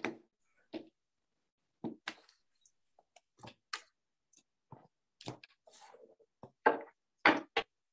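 Tarot cards handled and set down on a table: a scatter of short taps and brief rustles, the loudest three near the end.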